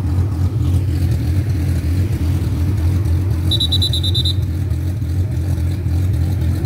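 An engine running steadily with a low, even rumble. Partway through, a short run of about seven quick high-pitched beeps sounds.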